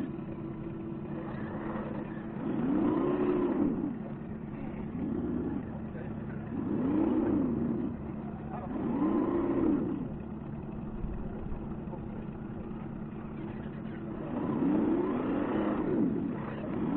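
Motor and gear whine of a 1:10 scale RC crawler, rising and falling in pitch with each short burst of throttle, about six times, over a steady background hum.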